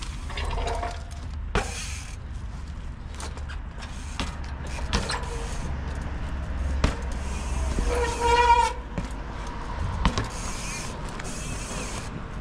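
Street trial bike being ridden through a technical line: several sharp knocks as the tyres land hops and drops, over a steady low rumble. A brief high-pitched sound about eight seconds in is the loudest moment.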